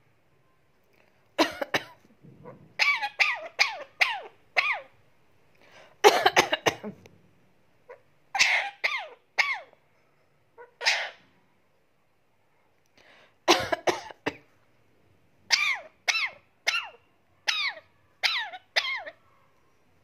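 Indian ringneck parakeet giving short, sharp calls in quick bursts of two to seven, each call falling in pitch, with pauses of a second or two between bursts.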